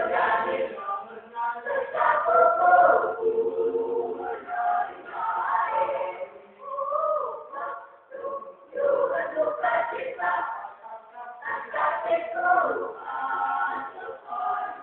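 A church youth choir singing, several voices together in sung phrases, with a short break between phrases about eight seconds in.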